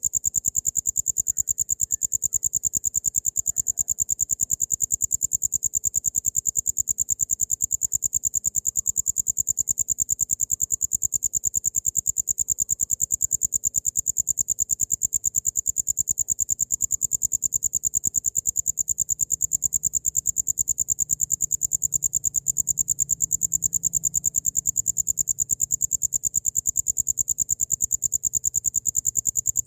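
Cricket singing: a high-pitched trill of rapid, even pulses.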